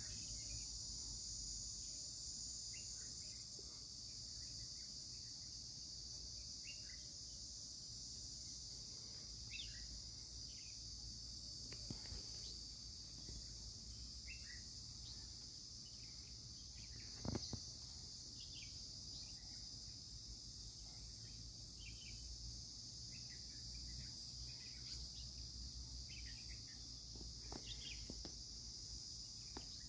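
Insects making a steady, high-pitched drone, with scattered short chirps over it and a low background rumble. A single sharp knock about seventeen seconds in.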